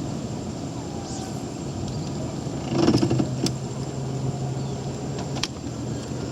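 A motor engine running steadily with a low hum, with a few sharp clicks and a brief louder rumble about three seconds in.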